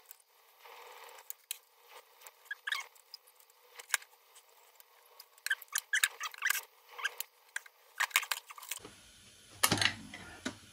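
Hand tools and small metal parts clicking and clinking against an old Elna sewing machine as it is taken apart, in quick irregular taps, with a couple of louder knocks near the end as the machine is moved on the bench.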